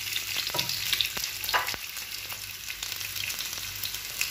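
Breadcrumb-coated chicken breast cutlets sizzling and crackling in hot olive oil in a frying pan, with a couple of louder clicks about half a second and a second and a half in.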